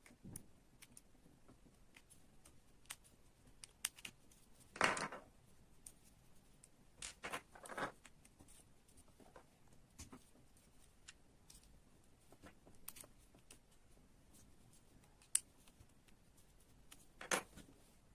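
Scattered light clicks and a few brief scrapes as small model-kit parts are handled; the loudest scrape comes about five seconds in.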